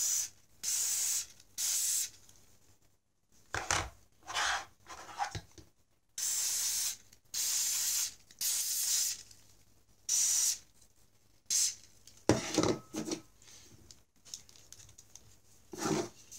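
Aerosol can of silicone spray lubricant hissing through a thin extension straw in a series of short bursts, about seven in all, each half a second to a second long. Between the bursts, the plastic Lego pneumatic engine rubs and clicks as it is handled and turned.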